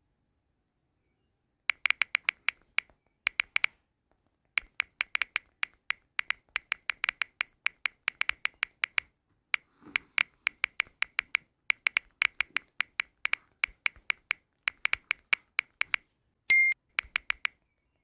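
Touchscreen phone keyboard tap sounds: quick runs of short, sharp clicks, several a second, with short pauses between bursts as messages are typed. A brief pitched blip sounds near the end.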